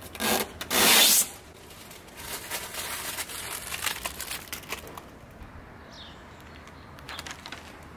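Window tint film pulled off car window glass with two quick ripping peels, then a few seconds of scratchy rubbing and rustling of the film.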